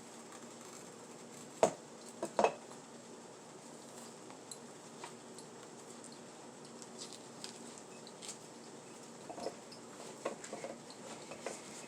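Kitchen clatter of utensils and dishes knocking together: two sharp knocks about two seconds in, then a few lighter clinks and taps near the end.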